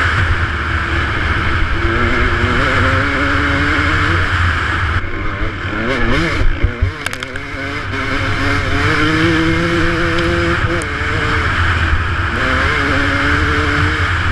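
KTM 200 XC-W two-stroke single-cylinder dirt bike engine revving up and down under riding load, with wind rushing over the microphone. About halfway through the throttle drops off briefly and there are a few knocks, then the revs climb again.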